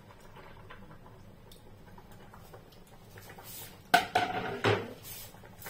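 Kitchenware clattering: a few sharp metallic clanks with brief ringing about four seconds in, after a quiet stretch.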